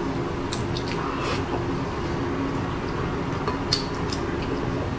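Close-miked eating sounds: a mouthful of braised pork belly and rice chewed with wet smacks, and a few short clicks of wooden chopsticks against a porcelain bowl, the sharpest about three-quarters of the way through, over a steady background hiss.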